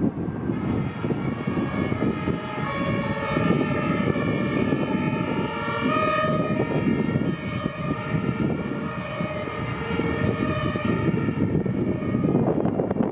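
Two-tone sirens (Martinshorn) of German fire engines on an emergency run, several overlapping with their tones alternating, over a low rumble of wind and traffic; the sirens die away near the end.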